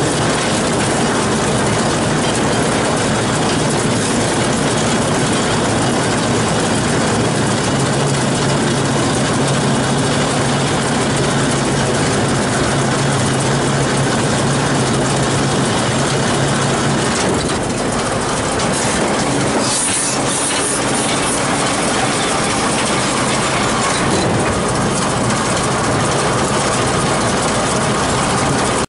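John Deere 6400 tractor's four-cylinder diesel running steadily under load while pulling a New Holland 648 round baler that is picking up and rolling hay, the engine and baler machinery making a continuous mechanical clatter.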